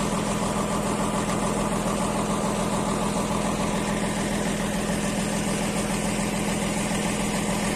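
Slipway winch engine idling, a steady drone that holds one speed throughout.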